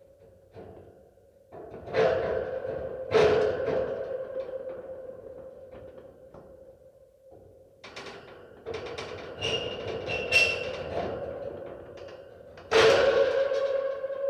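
Metal dungeon cage door clanking open and shut over a steady droning ambience. There are two heavy clangs about two and three seconds in, a run of rattling knocks with brief squeaks around ten seconds, and the loudest clang near the end, ringing on.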